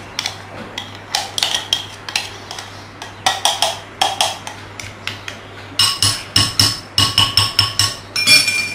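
A metal spoon scraping and knocking around inside the plastic bowl of a small electric food chopper, loosening semolina batter from the sides. The strokes are scattered at first, then come in a quick run of about three knocks a second near the end.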